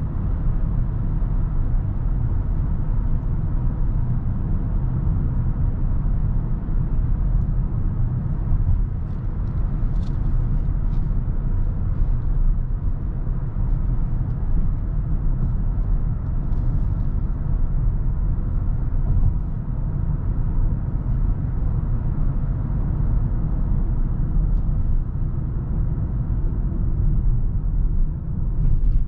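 Kia Sorento with a 2.2 CRDi diesel engine driving at a steady pace: a continuous low rumble of engine and road noise, with a few faint ticks about a third and halfway through.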